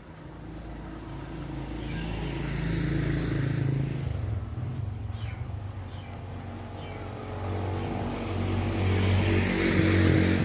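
Small engine running, getting louder over the first few seconds, easing off, then swelling again near the end.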